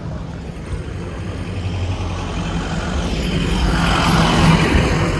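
A road vehicle passing close by: a steady engine hum under tyre and engine noise that builds to a peak about four seconds in, then begins to fade.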